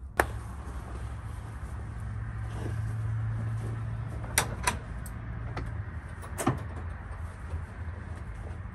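Sharp knocks and clicks from a slatted wooden pen gate being worked by hand, two close together a little past the middle and one more about two seconds later, over a low steady hum.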